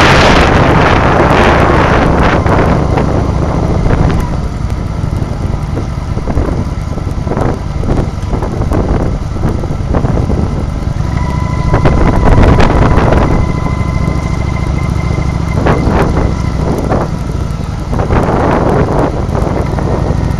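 Motorcycle engines running at low road speed, with wind buffeting the microphone, heaviest in the first couple of seconds. A steady high-pitched tone sounds for a few seconds midway.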